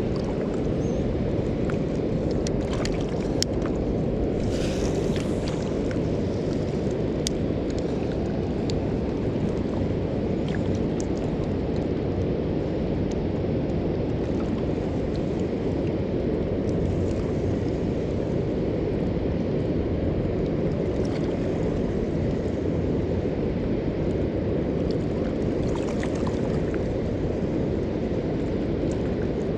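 Steady low rush of water pouring through a river spillway, an even roar with a few faint ticks in the first few seconds.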